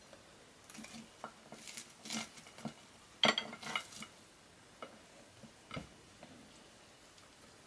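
Bare fingers mixing rice and fried pork chop on a ceramic plate: soft wet rustling with small clicks of food and fingertips against the plate, busiest in the first four seconds and loudest about three seconds in, then a few scattered taps.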